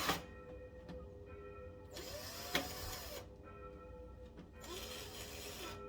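Metal window locking hardware being worked: three scraping, sliding sounds about two seconds apart, with a sharp click in the middle one, over faint background music.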